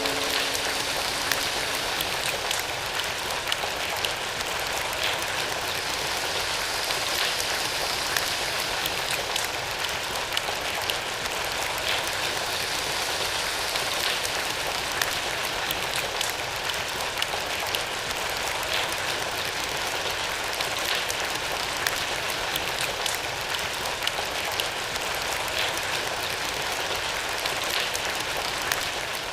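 A concert audience imitating rain together: a steady hissing patter made up of many small taps from many people at once.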